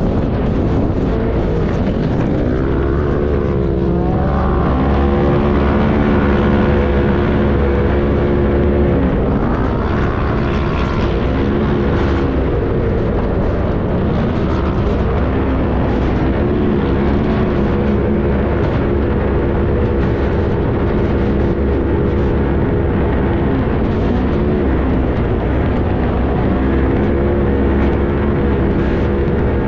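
Engine of an off-road race vehicle running hard over sand dunes, heard from on board, its revs climbing and dropping several times over a steady rushing noise.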